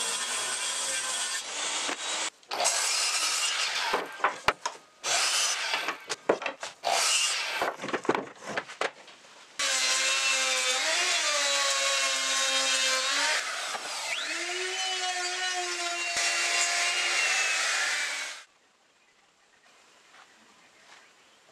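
Jobsite table saw ripping a board, followed by several seconds of short, broken bursts of cutting noise. Then a handheld router runs steadily while routing a panel edge, its motor whine dipping in pitch and recovering as the bit takes load, and cuts off suddenly near the end, leaving near silence.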